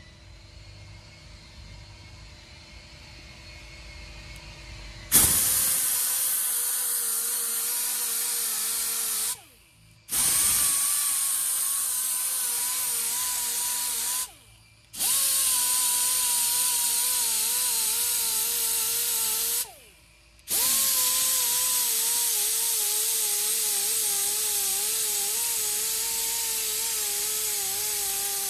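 Power sander grinding on an alloy wheel rim, its motor pitch wavering as it bears on the metal. It starts about five seconds in, after a low rumble, and stops briefly three times before running on.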